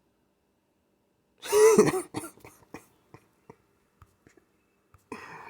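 A man coughs once, hard, about a second and a half in, followed by a few small mouth clicks and a short breath near the end.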